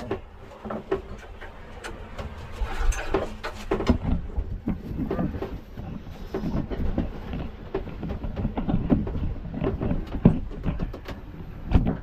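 Irregular clanking and knocking over a low rumble from efforts to start a boat's generator engine, which is being hard to start.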